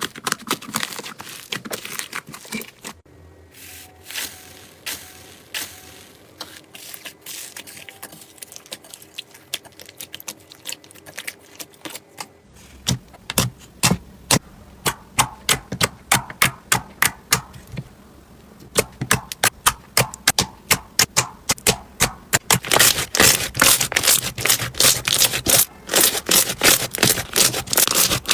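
Slime being pressed and worked by hand, making dense crackling clicks and pops. They are sparser in the middle and densest and loudest near the end.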